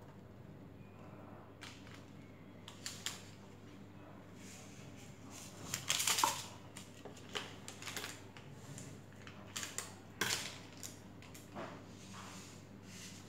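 Kitchen handling sounds: scattered clicks, knocks and short clattering scrapes of utensils and containers being moved and set down, the loudest about six seconds in and again near ten seconds, over a steady low hum.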